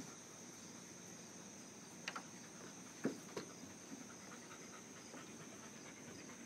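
Crickets chirping, a steady high-pitched trill. A few faint knocks and clicks come about two and three seconds in, the loudest just after three seconds.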